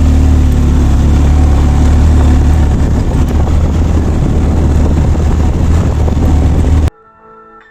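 Motorcycle running on the move, its engine buried under heavy wind noise on the microphone, with a strong low rumble throughout. It starts abruptly and cuts off about seven seconds in, giving way to soft music.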